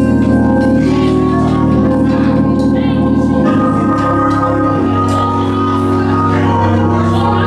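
Organ playing slow, sustained chords, changing chord about halfway through.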